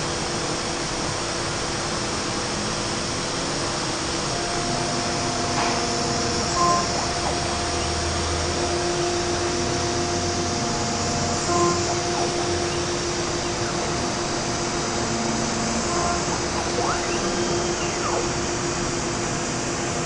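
Multicam 304 M Series CNC router running: the spindle spinning and the gantry moving the head over a sheet on the table, a steady machine whine and hiss whose hum tones change as the axes move, with a couple of brief louder blips.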